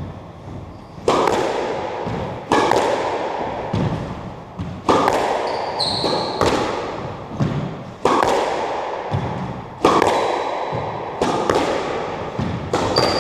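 A racket-and-ball rally in an enclosed court: the ball is struck and hits the walls about every one and a half seconds, each impact echoing and dying away in the hard-walled court. A few short high shoe squeaks come in between the hits.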